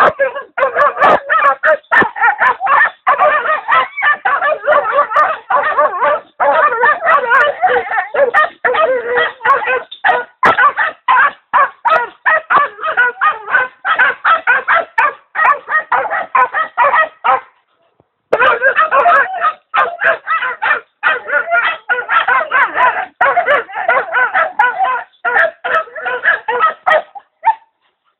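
Young Bosnian coarse-haired hounds yelping and baying at a wild boar in a rapid, unbroken stream of high calls, with a short pause about seventeen seconds in.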